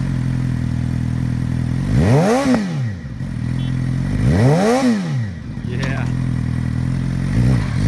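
2012 Suzuki GSX-R750's inline-four engine with a Two Brothers aftermarket exhaust, idling just after starting. The throttle is blipped twice about two seconds apart, each rev rising and falling within a second, and once more lightly near the end.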